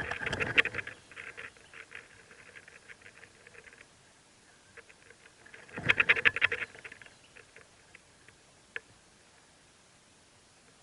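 Mockingbird nestlings begging in the nest: rapid, raspy chirps in two loud bouts, one at the start and another about six seconds in, with fainter chirps trailing off after the first.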